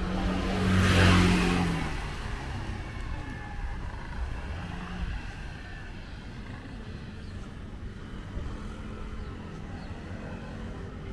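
A motor vehicle passes close by, its engine and tyre noise swelling to a peak about a second in and fading by two seconds. After that, quiet street ambience with a faint steady hum.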